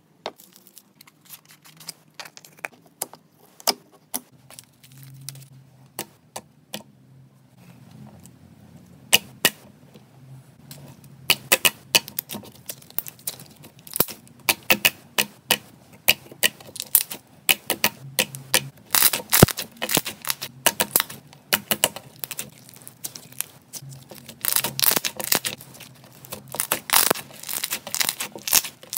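Slime being squeezed and kneaded by hand, making crackling pops and clicks. The clicks are sparse at first, then come thick and fast about halfway through and again near the end.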